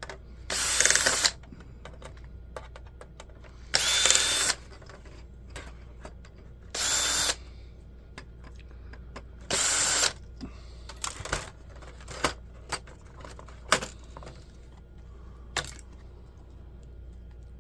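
Small cordless electric screwdriver running in four short bursts, about three seconds apart, backing screws out of a laptop case. Between and after the bursts come small scattered clicks and taps of the screws and plastic parts being handled.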